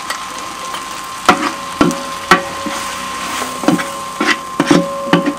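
Spice masala sizzling as it fries in hot oil in a cooking pot, while a ladle stirs it and knocks against the pot about seven times.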